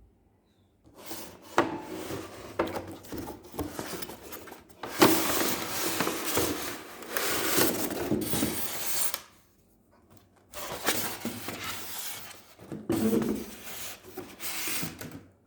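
Toy packaging being handled and opened, with cardboard and plastic rubbing and scraping in three bursts of several seconds each and a few sharp clicks.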